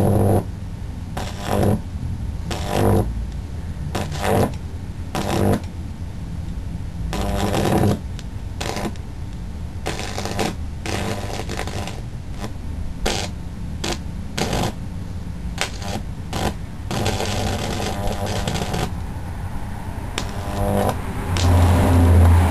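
High-voltage arcs from a 1000 W microwave oven transformer, current-limited by a series microwave capacitor, burning across a circuit board: irregular crackling bursts over a steady mains transformer hum. The hum grows much louder near the end.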